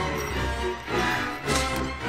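Film score music playing, with a single sudden thump about one and a half seconds in.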